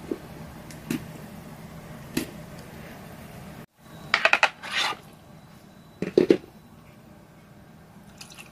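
A knife knocking a few times on a plastic cutting board as raw chicken drumsticks are scored. About four seconds in comes a loud metallic clatter as the drumsticks slide off a ridged board into a stainless steel bowl, followed by two duller thumps.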